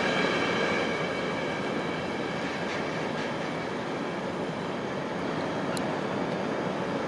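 A train rolling past on the track with a steady rumble of wheels and cars. A high whine of several tones fades out during the first second or so.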